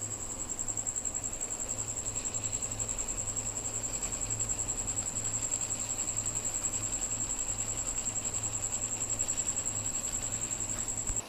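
Milling machine running: a steady high-pitched tone over a low hum, with a fast, regular pulsing.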